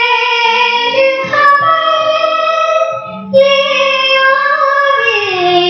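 A woman singing long held notes of a Hindi film song melody over a low instrumental accompaniment. There is a short break about three seconds in, and near the end the voice slides down in pitch with a slight waver.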